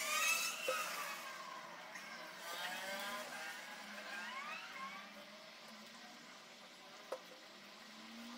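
Squeaky plastic creaks as a plastic glue bottle is squeezed and a fabric-covered plastic bottle is handled while glue is brushed on, with a light click about seven seconds in.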